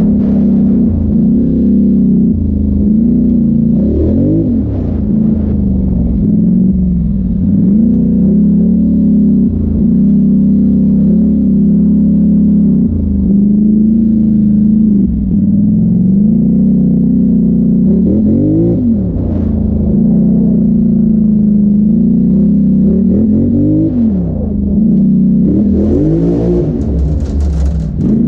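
Polaris Sportsman XP 1000 ATV's parallel-twin engine running under load, revving up and easing off again and again as it climbs and drops over rough dirt hills, with the hardest revving near the end.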